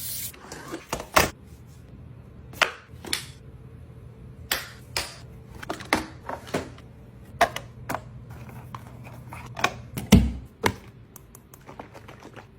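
Irregular hard plastic clicks and knocks from parts of a eufy robot vacuum station being handled and fitted, over a faint low hum. One heavier thump comes about ten seconds in.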